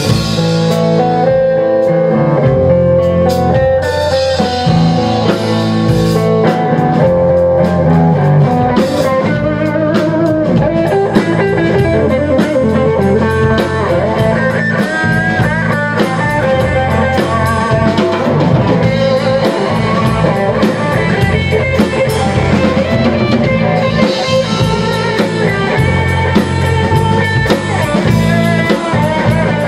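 A live rock band playing an instrumental passage: two electric guitars through amplifiers over a drum kit, with the drumming getting busier about nine seconds in.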